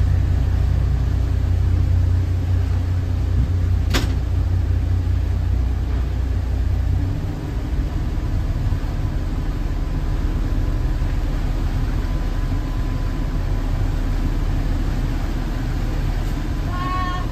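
Motorboat engine running steadily, a low rumble heard from the helm as the boat moves under way; the rumble changes about seven seconds in. A single sharp click about four seconds in, and a short voice-like sound near the end.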